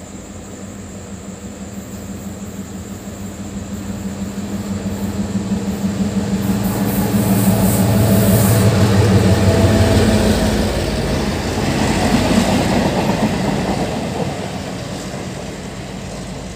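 Diesel locomotive hauling a freight train passes close by: its engine drone grows steadily louder to a peak about eight to ten seconds in, then gives way to the rumble of the wagons' wheels on the track, which fades away near the end.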